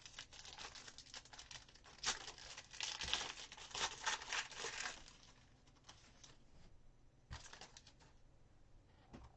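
Crinkling and rustling of trading-card packaging and cards being handled, densest for about three seconds from two seconds in, with a shorter rustle later and a small click near the end.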